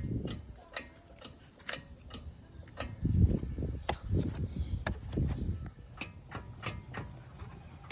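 Clicking from the front end of a 2013 Ford F-150, about two sharp clicks a second over a low rumble, like a card in bicycle spokes: the sign of a failing front hub and 4WD hub actuator.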